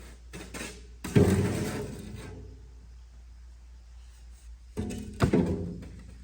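Heavy thunks of hard objects being knocked or set down. The loudest comes about a second in and rings on briefly, and a second cluster of knocks comes near the five-second mark.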